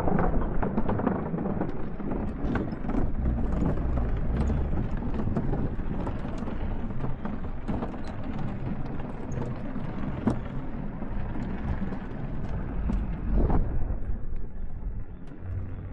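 Rumbling wind noise on the microphone with scattered clicks and knocks, the loudest knock near the end.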